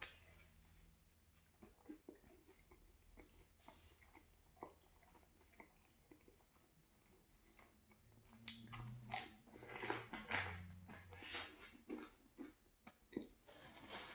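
Chewing and biting a chicken, cheese and vegetable sub sandwich, with small crunches. Faint at first, it grows louder and busier about halfway through.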